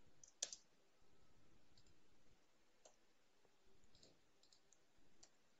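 A few faint clicks from a computer keyboard and mouse during code editing, with one sharper click about half a second in, over near silence.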